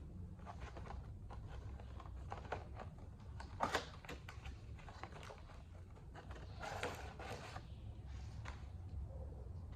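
Unboxing handling sounds from a dish wand and its packaging: scattered small clicks and rustles, a louder pair of knocks about four seconds in and a short rustle about seven seconds in, over a low steady hum.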